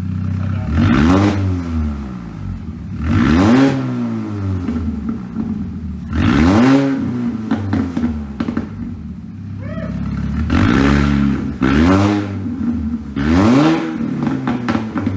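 Supercharged four-cylinder engine of a 2006 Mini Cooper S JCW being revved in about five short blips, each rising and falling in pitch, with a lull near the middle.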